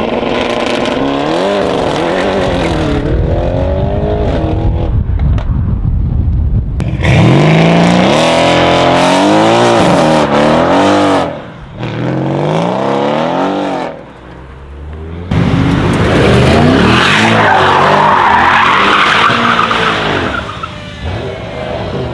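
Mercedes-AMG twin-turbo V8 cars accelerating hard, their engine notes rising and dropping through gear changes in several separate runs. In the later part a long tyre squeal sits over the engine as an AMG E63 saloon drifts.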